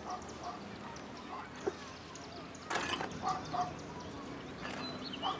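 Birds chirping in short calls over a faint outdoor background, with a brief rustle about three seconds in.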